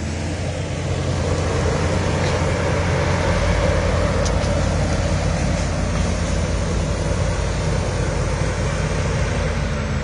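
TG 120 crawler bulldozer's diesel engine running steadily under load as the blade pushes a pile of earth. It grows louder about a second in.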